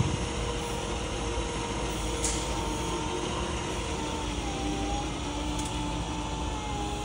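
Electric motor whine from a 48-volt AC Bendi B40-AC forklift in operation: several steady tones over a low hum, the highest dipping slightly in pitch about halfway through. Two brief high hisses come at about two and five and a half seconds.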